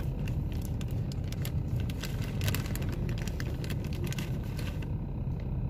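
Wind buffeting the microphone: a steady low rumble with scattered crackles.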